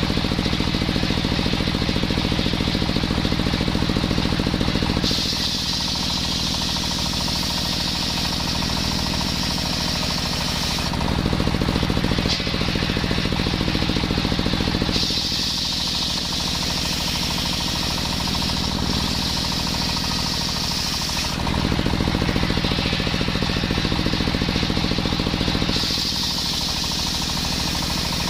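Engine-driven circular saw running steadily while sawing coconut wood. The sound switches back and forth every few seconds between a slightly louder, lower engine note and a quieter note with a high-pitched edge, as the blade goes in and out of cuts.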